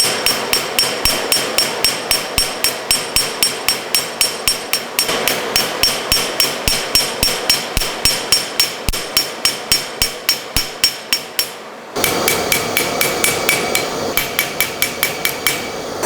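Hand-hammer blows on steel forged from railroad rail, about three to four a second, each with a high ringing from the anvil and workpiece. The hammering stops briefly about twelve seconds in, then resumes.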